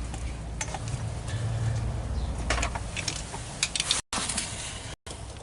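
Hands handling cables and connectors while wiring up a 12 V supply: scattered clicks and rustling over a low hum that fades about three seconds in.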